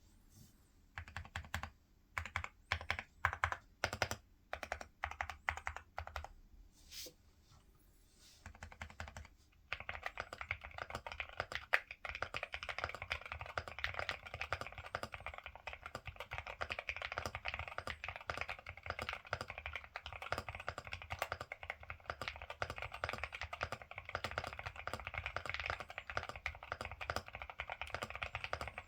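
Typing on a Ciddo V65 V2 mechanical keyboard with Akko Rosewood switches. Separate keystrokes and short runs for the first several seconds, then steady fast typing from about ten seconds in.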